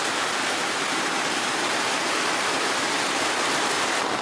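Heavy rain falling steadily: a dense, even hiss of a downpour.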